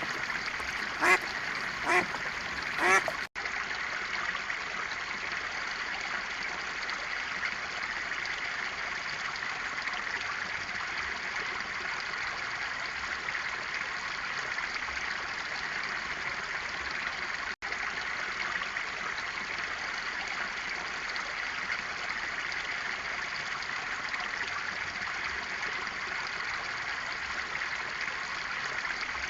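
A duck quacks three times in the first three seconds, then steady flowing water runs for the rest, with two brief cut-outs where the clips change.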